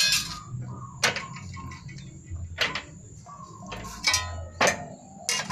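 Homemade manual sheet-metal bending brake being worked: about six sharp metallic clanks and clinks roughly a second apart, as the handle, clamp and steel sheet knock together, some with a brief ring.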